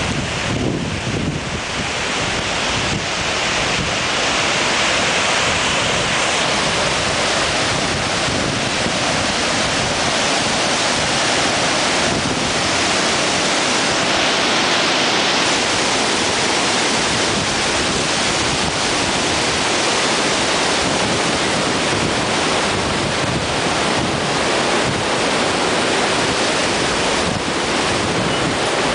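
Steady, loud rush of a fast mountain river tumbling over boulders.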